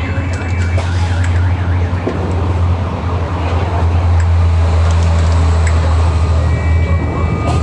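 City bus under way, heard from inside: a steady low engine drone with road and rattle noise. A high warbling, siren-like tone sounds over it for about the first second.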